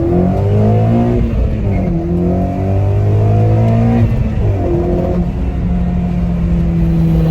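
Honda Civic Si's 2.4-litre four-cylinder engine breathing through an aftermarket Full Race downpipe and Yonaka 3-inch catback exhaust, heard from inside the car on a hard pull. The engine note climbs and drops a couple of times with gear changes, then holds steady near the end.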